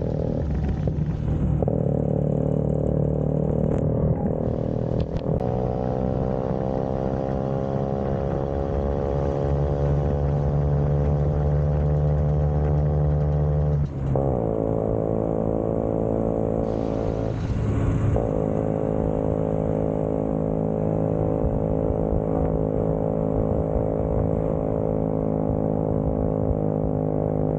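Vespa scooter engine running steadily on the road. The engine note dips and picks up again twice, about halfway through and a few seconds later, as the throttle is let off and opened again.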